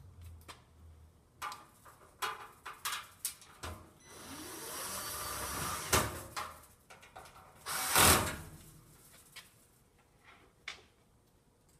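Cordless drill-driver with a Phillips bit running for about two seconds with a rising whine, driving a stainless steel screw into the top of a metal spice-rack frame and ending in a sharp knock. Clicks and knocks from handling the metal frame come before it, and a second short, loud burst follows about two seconds later.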